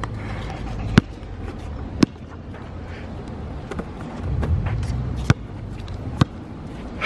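Basketball bouncing on an outdoor asphalt court, four sharp bounces: two about a second apart, then a pause, then two more about a second apart. A low background rumble runs under them and swells briefly just before the third bounce.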